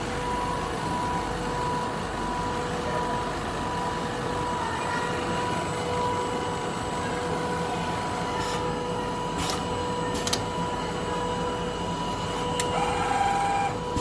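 Richpeace automatic four-side sewing machine running: a steady mechanical whir with a steady hum, and a few sharp clicks in the second half.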